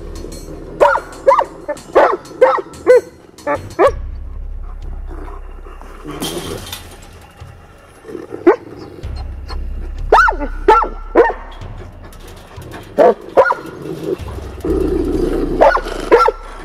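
Large livestock guardian dogs barking in quick runs of short barks, several runs over the stretch. This is a rank fight, with the dominant dog punishing the newcomer.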